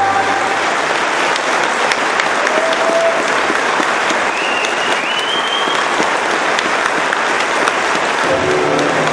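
Theatre audience applauding loudly as a choir's final held chord dies away, with a brief whistle from the crowd around the middle. Music starts up again near the end.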